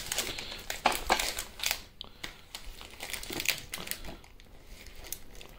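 Foil Pokémon booster pack wrapper crinkling as it is handled, busy with crackles for the first two seconds, then sparser and fainter.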